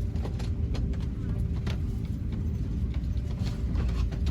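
Airliner cabin ambience at the gate: a steady low hum from the ventilation with a faint constant tone, and scattered small clicks and knocks.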